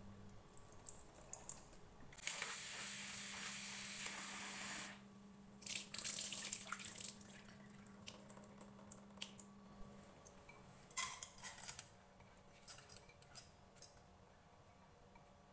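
Kitchen tap running into a bowl of red lentils in the sink as they are rinsed: a steady rush of water for about three seconds, then a shorter spell of splashing and pouring off. Quieter scattered clicks and taps follow in the second half.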